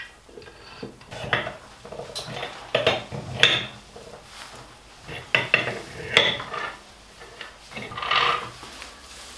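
Aluminium crankcase halves of a Vespa engine being fitted together by hand over the gearbox: irregular metallic clinks and knocks, about a dozen, with a longer scrape about eight seconds in.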